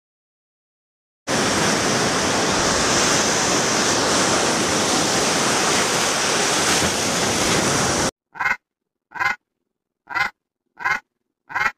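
A steady rushing noise, like surf, that cuts off suddenly, followed by five short duck quacks, each a separate call about a second apart.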